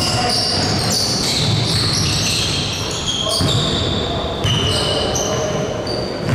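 Basketball game sounds in a gym hall: the ball bouncing on the court, sneakers squeaking in short high notes on the floor, and players' voices.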